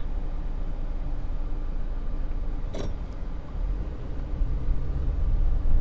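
Cabin noise inside a moving Nissan sedan: steady engine hum and tyre and road rumble, with a short click about three seconds in.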